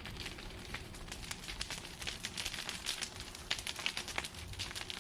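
Brush fire of burning branches crackling, with many irregular sharp snaps and pops.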